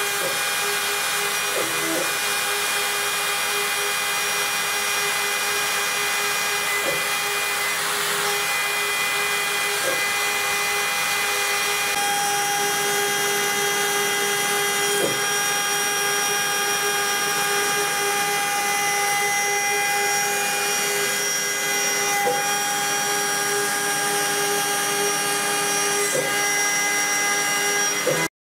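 Homemade CNC router's spindle motor running steadily as its end mill cuts a pocket in 10 mm AlCuMg1 aluminium plate. The sound is a steady, high-pitched whine with a few faint ticks, and it cuts off suddenly at the very end.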